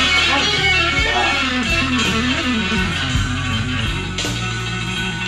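Electric guitar music: a melodic lead line with bending notes over sustained bass notes.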